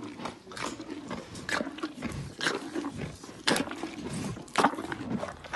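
Black rhino chewing food held up to its mouth, with loud crunches about once a second.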